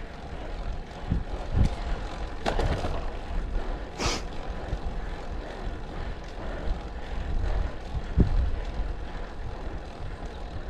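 Wind rushing over the microphone of a road bike descending fast, a deep rumble with a few sudden bumps and a short sharp hiss about four seconds in.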